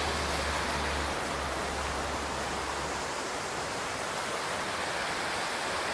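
Mountain stream rushing, a steady even wash of water noise. A low rumble sits under it and stops about halfway.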